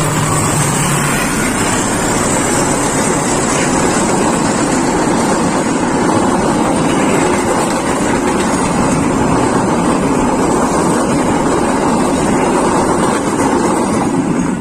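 Passenger train passing close by: a loud, steady rush and rumble of the carriages' wheels rolling on the rails.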